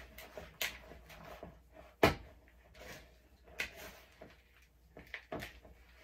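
A utensil stirring a thick, sticky mix of seeds, oats, honey and almond butter in a mixing bowl, scraping and knocking against the bowl in irregular strokes, with one sharp knock about two seconds in.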